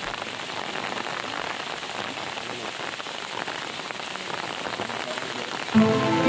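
Steady rain falling, an even hiss of many small drops. Background music comes in near the end.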